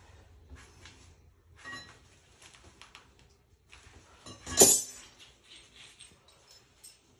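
Small clicks and knocks of hands working a brass sink P-trap and its fittings, with one loud metallic clank about four and a half seconds in.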